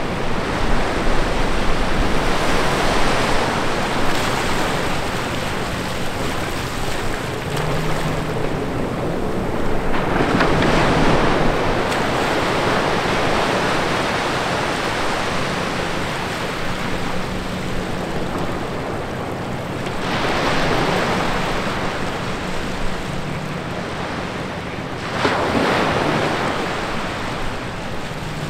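Small ocean waves breaking and washing up a sandy beach between rocks, the surf swelling and easing several times, with a sharper surge near the end.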